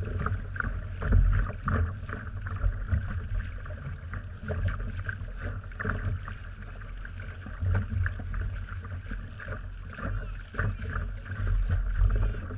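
Water splashing and lapping against a small boat's hull, irregular slaps over a steady low rumble of wind.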